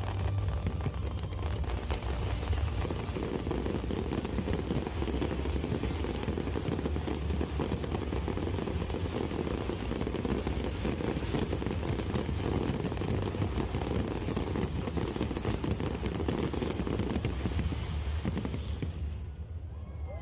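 Fireworks going off in a dense, continuous barrage of bangs and crackles, dying away near the end.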